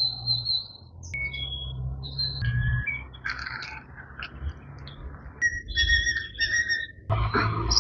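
Birds calling in short, varied high chirps and whistles over a steady low hum.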